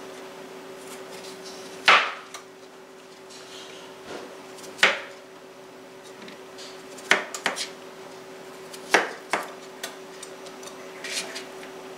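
Chef's knife dicing boiled potatoes, the blade knocking sharply on a cutting mat about seven times at irregular gaps of one to two seconds.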